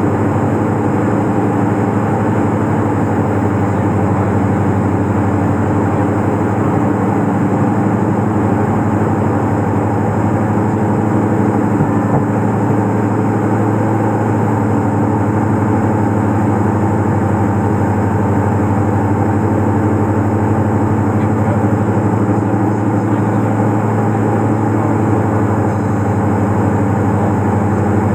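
Twin engines and propellers of a Diamond DA42 droning steadily, heard from inside the cabin, with an even pitch and level throughout.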